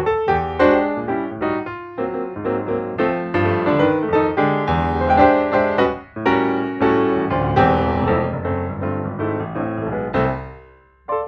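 Background piano music: a steady run of struck notes and chords that dies away near the end.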